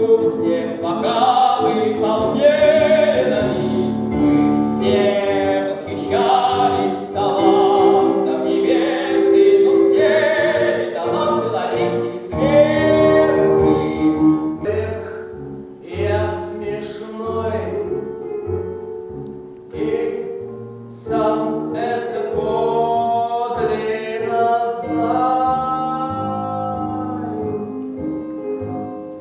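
Singing with a wide vibrato over sustained instrumental accompaniment.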